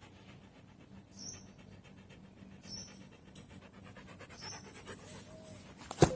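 Siberian husky panting steadily and faintly. A sharp knock comes near the end.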